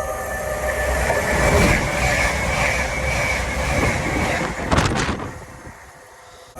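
Diesel passenger train passing close by at speed: the rush of wheels on rail and engine noise builds, stays loud, and falls away sharply about five seconds in.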